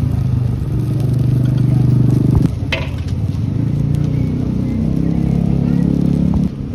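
An engine running steadily, with a low hum of even pitch. Its sound changes abruptly about two and a half seconds in and drops away near the end.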